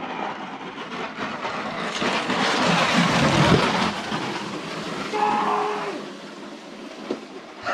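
A sled sliding fast down an iced bobsleigh track, its scraping rush swelling as it passes close about three seconds in and then fading away down the run.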